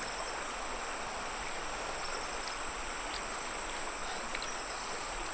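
Insects chirring in one steady, unbroken high-pitched drone over a soft, even background hiss, with a few faint ticks.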